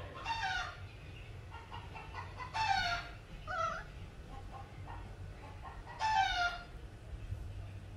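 Baby monkey crying out in four short calls, each falling in pitch, over a steady low hum.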